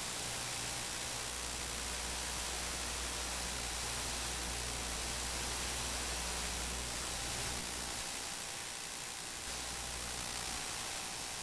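Steady static-like hiss with a low rumble underneath that drops out about eight seconds in and briefly returns.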